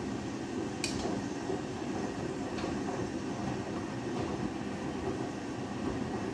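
Front-loading washing machine drum turning dark laundry through a high water level during a rinse: a steady churning and sloshing rumble, with a sharp click about a second in.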